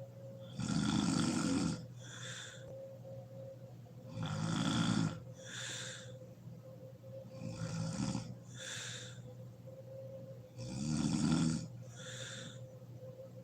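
A sleeping woman snoring: four loud snores about three and a half seconds apart, each followed by a shorter, breathy exhale.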